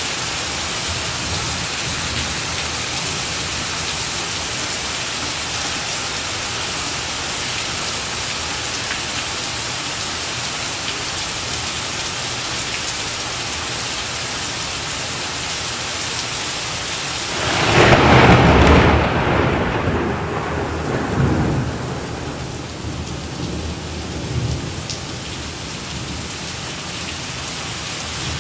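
Heavy rain pouring down on a street, a steady hiss. A little over halfway through, a loud clap of thunder breaks out and rumbles away over several seconds.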